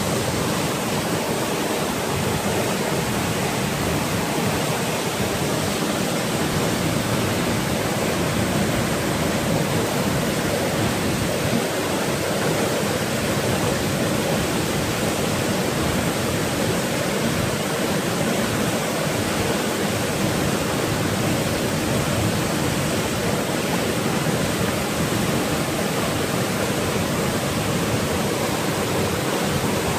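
Waterfall plunging down a rock face into a pool: a steady, loud rush of falling water.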